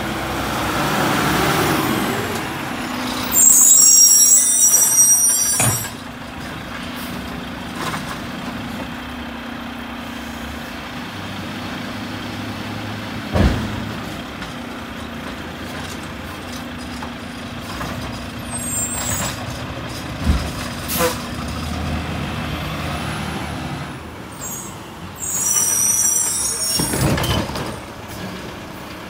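Mack LR garbage truck with a Heil Multipack body running, with loud air hissing from its air brakes a few seconds in and again near the end. Two sharp knocks in between as its automated arm lifts and dumps a cart.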